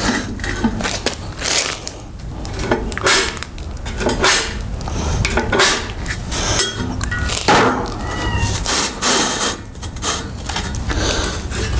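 Screwdriver tip scratching scribe lines into steel square tubing: a run of short scrapes, some of them squealing briefly, mixed with light clanks of the metal being handled.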